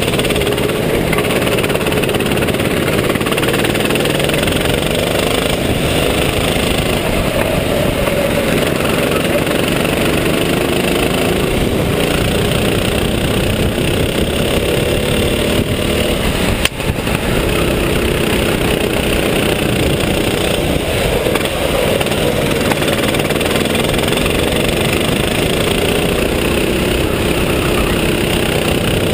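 Go-kart engine running hard under racing load, its pitch rising and falling as the kart accelerates out of corners and lifts into them. One sharp knock a little past halfway through.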